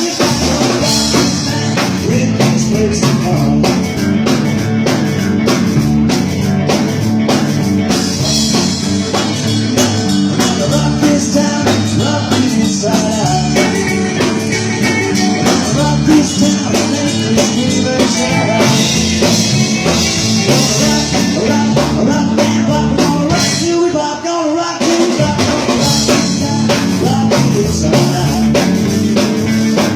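Rockabilly band playing an instrumental stretch on drum kit and guitar, with a short drop in the playing about three-quarters of the way through.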